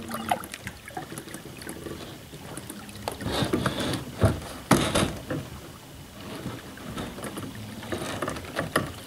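Water lapping and splashing around a kayak and dock, with many small clicks and two sharper knocks about four and five seconds in. Under it is a faint steady low hum from the kayak's 30 lb thrust electric trolling motor driving it along.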